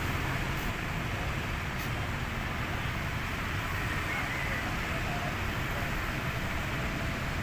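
Steady outdoor background rumble, even and unbroken, heaviest in the low end, with no distinct events.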